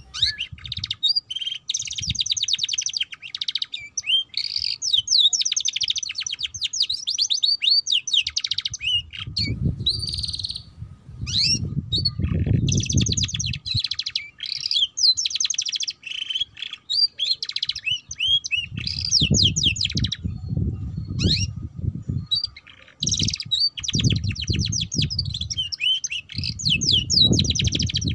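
Domestic canary singing a rapid twittering, ngeriwik-style song: long runs of fast trills and chirps broken by short pauses. Bursts of low rumble come and go under the song, around the middle and again near the end.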